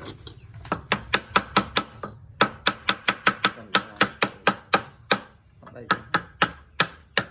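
Rapid, evenly spaced knocks of a tool striking wood, about four to five blows a second, in three runs with short pauses between them.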